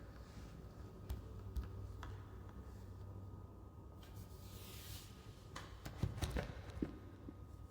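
Quiet room tone with a low steady hum, broken by scattered small clicks, a brief hissing swish about four and a half seconds in, and a cluster of louder clicks and knocks about six seconds in.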